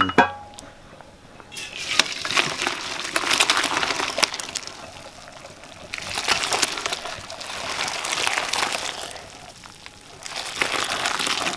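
Hot cooking water and boiled dough dumplings poured from a pot into a perforated metal colander over a steel bowl, in three pours, with the water gushing through and light clinks of the pot against the colander.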